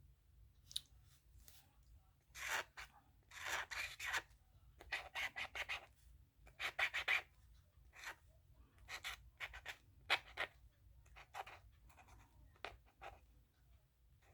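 A marker tip scratching across paper in a series of short strokes, coloring in a shape.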